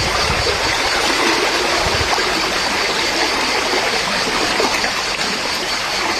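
Steady rushing of flowing water, with a few low thumps near the start.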